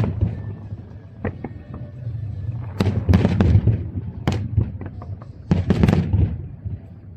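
Fireworks bursting: a string of sharp bangs and crackles, bunched in two dense volleys, one a little before halfway and one near the end, over a continuous low rumble.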